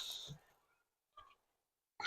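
Near silence: faint handling noise from the plastic light cluster being worked into place at the start, then quiet apart from one faint tick about a second in.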